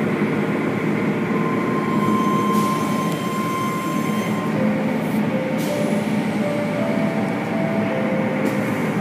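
Automatic car wash running: water spraying and cloth curtain strips brushing over the car, with a steady machinery hum.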